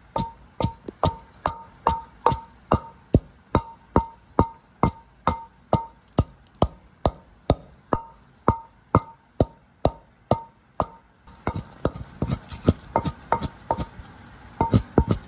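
Wooden neem pestle pounding dried red chillies in a clay mortar: steady knocks about two to three a second, each followed by a short ring. From about eleven seconds in the strokes turn softer and quicker for a few seconds, then the strong knocks return near the end.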